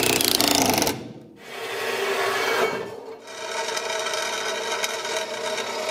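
Workshop tool noise: rough rasping in two short stretches, then a steadier run with a hum of several held tones.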